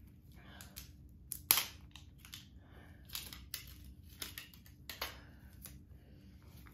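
Crinkling and tearing of plastic snack packaging being struggled open by hand: irregular crackles and clicks, with one sharp snap about one and a half seconds in.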